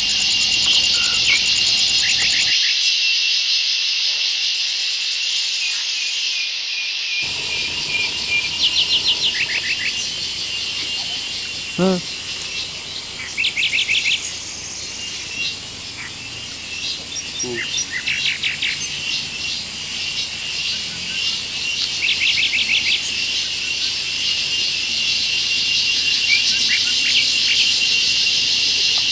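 Dense forest insect chorus, crickets and cicadas, keeping up a steady high shrill. Short rapid trills recur every few seconds, and a single brief call comes about twelve seconds in.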